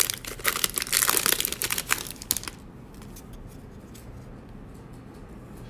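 Trading card pack wrapper being torn open and crinkled: a dense run of crinkling for about two and a half seconds, then it stops.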